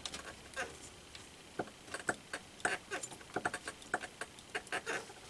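Irregular clicks, taps and light rattles of computer parts and packaging being handled, at uneven spacing throughout.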